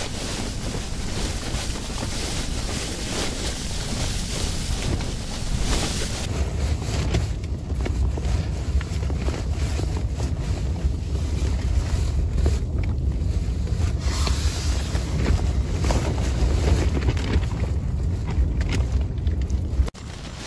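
Strong storm wind buffeting the microphone: a steady low rumble with hiss that grows heavier about a third of the way in, then breaks off abruptly near the end.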